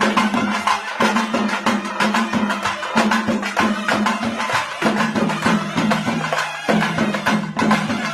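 Fast, busy traditional percussion music, many quick strokes a second, over a steady low drone.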